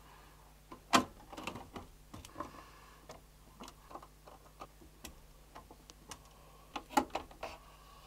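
Motherboard mounting screws being tightened into the standoffs of a metal PC case: faint scattered clicks and ticks of screw and tool against metal, with a sharper click about a second in and a couple more near seven seconds.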